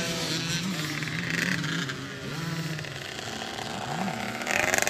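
Small dirt bike engines revving on a motocross track, the pitch climbing and dropping in short repeated revs. The sound gets louder near the end as a bike rides close.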